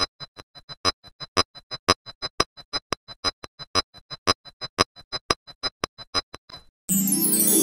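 A rapid, even run of identical sharp clicks with a high ring, about six a second, stops near the end. Keyboard music then begins.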